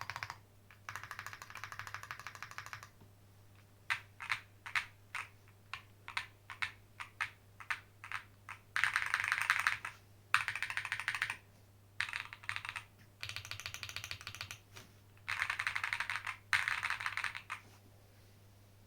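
Monsgeek M1 mechanical keyboard with a PC plate, factory-lubed Dreamland tactile switches and PBT keycaps, typed on with clacky keystrokes. A quick run of presses on a stabilized key comes first, then single, spaced presses, then several short bursts of rapid typing.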